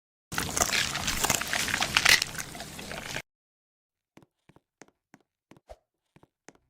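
Close, wet chewing and smacking with many small clicks, which starts and stops abruptly after about three seconds. Faint single clicks follow, about three a second.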